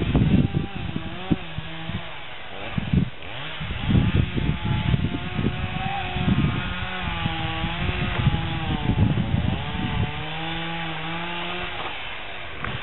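Two-stroke chainsaw running, its pitch rising and falling as it cuts into a silver birch trunk.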